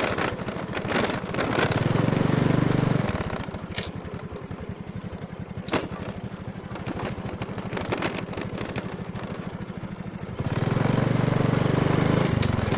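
Motorcycle engine running as it rides a rough dirt track, pulling harder near the start, easing to a lower, quieter run for several seconds, then picking up again near the end. A couple of sharp knocks stand out in the quieter stretch.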